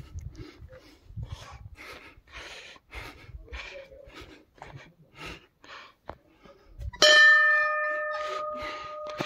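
A temple bell struck once about seven seconds in, ringing on with several clear tones and fading slowly. Before it, quick regular puffs of hard breathing.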